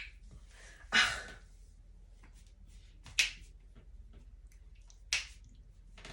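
Three sharp finger snaps, about two seconds apart.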